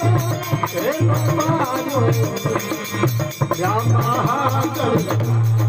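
Live devotional folk song: a man singing through a microphone to a harmonium and a hand drum, with a steady beat underneath.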